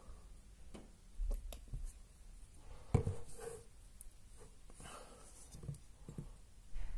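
Quiet handling sounds of face painting: a plastic paint bottle squeezed, and a paintbrush dabbed and rubbed on skin, with small clicks throughout and one sharper click about three seconds in.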